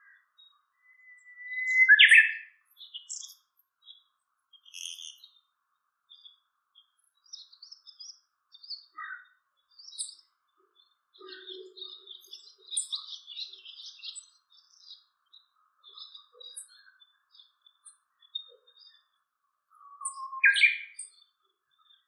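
Small songbirds calling: a loud short call about two seconds in and another near the end, each a brief thin whistle ending in a sharp chirp, with scattered faint high chirps between.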